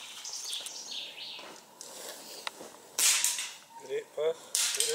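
Two sharp air rifle shots about a second and a half apart, the first about three seconds in and the second near the end.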